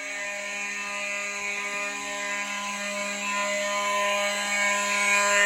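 Several fire alarm horns sounding together steadily and without a break, the continuous pattern of an activated pull station, with the buzz of a mechanical horn among them.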